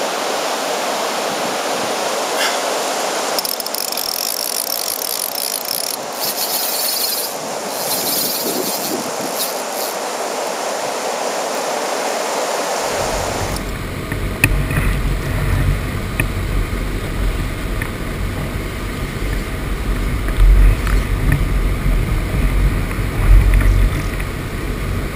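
Steady rush of water pouring over a weir. About halfway through, the sound changes to a low rumble with a few knocks and louder peaks near the end.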